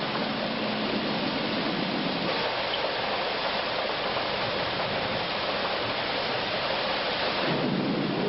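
Steady rushing cabin noise of a helicopter in flight, with a faint low hum that drops away about two seconds in and returns near the end.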